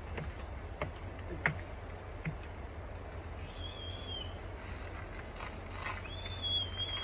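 Outdoor ambience with a steady low rumble and a few light knocks in the first couple of seconds. Two short, thin, slightly wavering high whistles come about three and a half seconds in and near the end.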